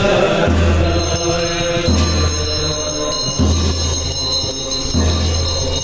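Tibetan Buddhist ritual music: monks chanting over a deep drum beat that comes about every second and a half, joined about a second in by a high metallic ringing.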